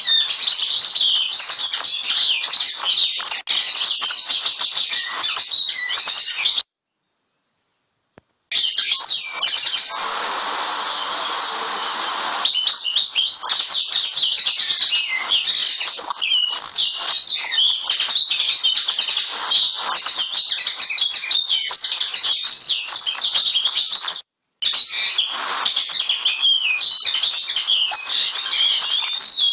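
Common linnet singing a fast, continuous twittering song of quick, varied notes. The sound cuts out completely for about two seconds about seven seconds in, and again very briefly near the end.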